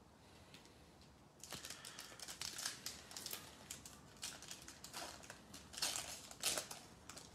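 Foil wrapper of a 2020 Panini Select football card pack crinkling and tearing as it is ripped open by hand. An irregular run of crisp crackles starts about a second and a half in.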